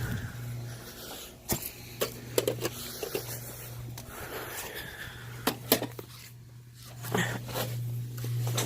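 Scattered knocks and rustles of gear being handled and a person moving about, over a steady low hum.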